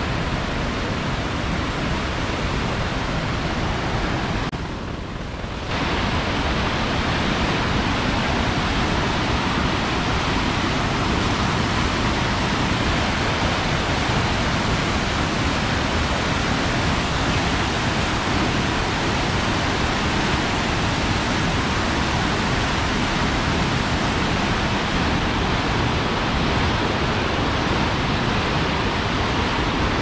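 Fast mountain river rushing over rocky rapids: a steady, full whitewater rush. The level dips briefly about five seconds in.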